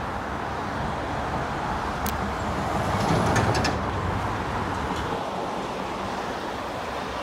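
Road traffic passing beneath a footbridge on a multi-lane road: a steady rush of tyre and engine noise that swells about three seconds in as vehicles pass under, then eases.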